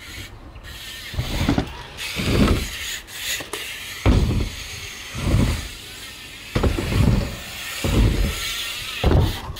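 BMX bike's tyres rolling over the ramp surfaces with a steady hiss, and a run of low thuds about a second apart.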